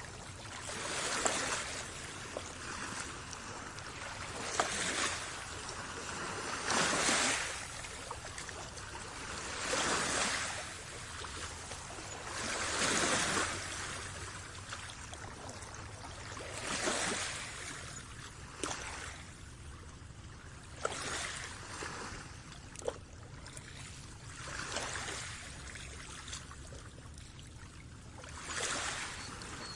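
Small waves washing in one after another, each swelling and fading every three to four seconds, with water trickling between them.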